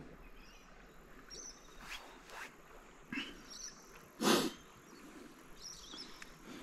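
Canoe on calm water: soft paddle splashes and drips, with one louder, short paddle stroke about four seconds in. Faint high chirping runs behind it.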